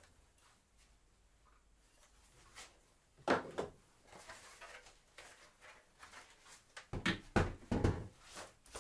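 A few knocks and clunks of handling in a quiet workshop: one about three seconds in, then several close together near the end.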